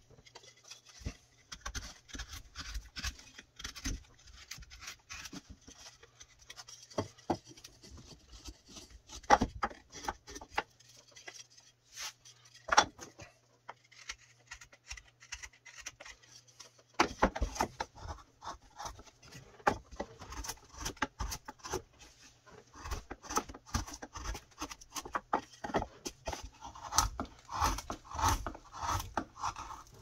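Carving knife slicing thin shavings from a softwood 2x4 blank: a quick, irregular run of short scraping cuts, easing off for a few seconds midway and then picking up again.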